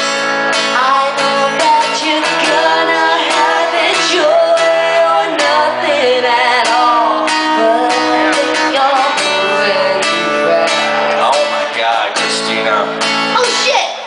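Acoustic guitar strummed in steady chords under a sung melody, played live.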